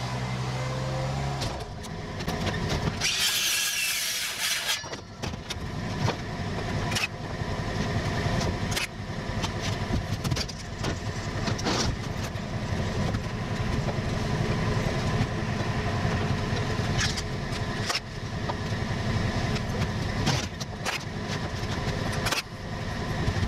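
Scissor lift running as it moves along, a steady low mechanical rumble with scattered knocks and clicks, and a brief hiss about three seconds in.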